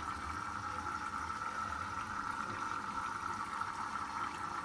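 Candy Grand Vita washing machine, restarted once its E03 error was cleared, running with a steady hiss of water flowing in.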